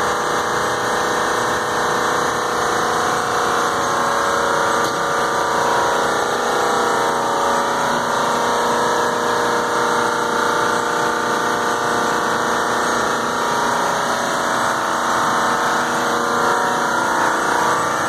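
Large commercial air-conditioning equipment running: a steady, even drone made of several held tones over a noisy hum.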